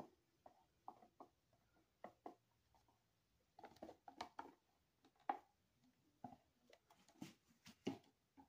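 Irregular light clicks and knocks from a plastic cup being handled and tipped over a soap mold. The loudest knock comes a little past five seconds in, with another cluster near the end.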